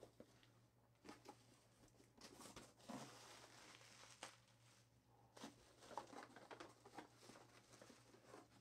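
Faint rustling and crinkling of plastic packing and a cardboard box being handled during unpacking, in short scattered bursts.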